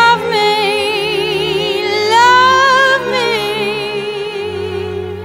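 Jazz Christmas song: a woman sings long held notes with strong vibrato over low, slow-moving accompaniment notes. The singing trails off near the end.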